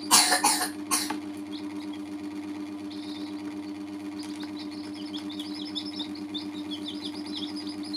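Baby chicks peeping, short high downward chirps that come thick and fast in the second half, over a steady low hum. A few sharp knocks sound in the first second.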